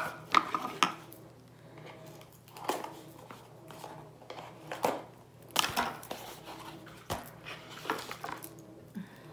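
Small cardboard watch box and its wrapping being handled and opened, with scattered clicks, taps and knocks as the watch is taken out.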